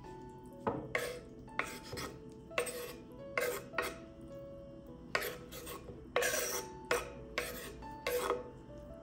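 Steel knife blade scraping across a wooden cutting board in about a dozen quick strokes, sweeping chopped raw chicken gizzard pieces off the board into a glass bowl.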